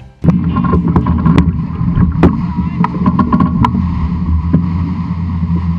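Sound of a historic 18-foot skiff sailing fast: wind buffeting the mast-top microphone in a steady low rumble over rushing water, with many sharp clicks and knocks from the boat.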